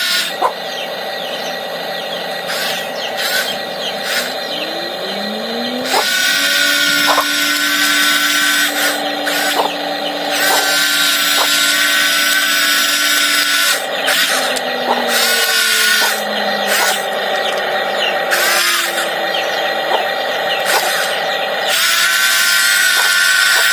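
Small electric motors of a toy RC excavator whining in on-and-off spurts as it is worked, with scattered clicks. One whine rises in pitch about five seconds in, and another falls in pitch about fifteen seconds in.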